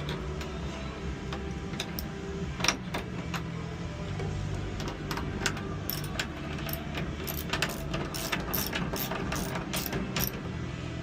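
An Allen key tightening screws in the metal ball-gate mechanism: a run of small metallic clicks and taps as the key is turned and reseated, sparse at first and coming several a second in the second half, over a steady low hum.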